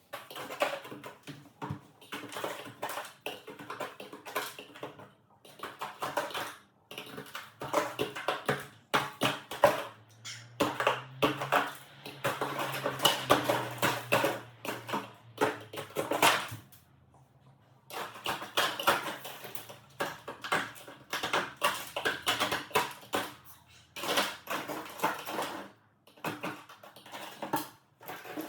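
Irregular knocking, scraping and clattering of a defrosting fridge being cleaned out by hand: ice being broken loose and the fridge's dishes and shelves handled. The knocks come in clusters with short pauses between them.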